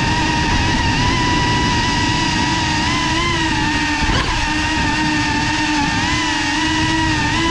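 FPV quadcopter's electric motors and propellers whining steadily, the pitch wavering slightly with throttle, with a brief sharp pitch swing about four seconds in.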